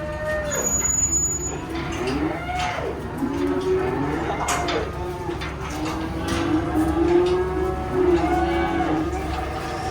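Many cattle mooing, several calls overlapping at different pitches, over a steady low hum.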